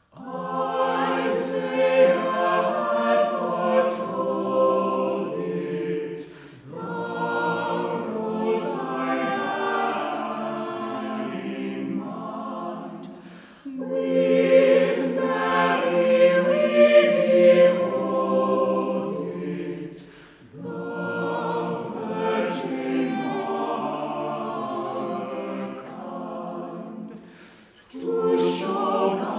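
Mixed choir of men and women singing a cappella, in four phrases of about seven seconds each with a brief breath between them.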